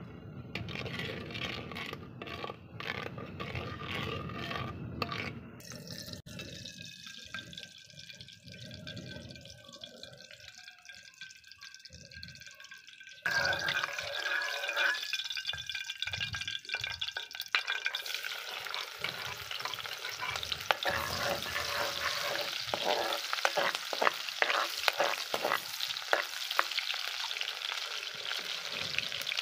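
Steel spoon stirring moong dal in a clay pot, with scraping noises. After an abrupt change about 13 seconds in, oil sizzles in a steel wok. About five seconds later it becomes a louder, popping sizzle of sliced onions frying for the tadka.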